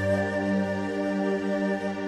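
Background music: calm new-age style with sustained, held chords.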